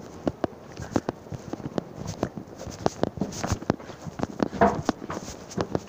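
Footsteps clicking on a hard paved walkway, several steps a second, with a brief louder rustle about four and a half seconds in.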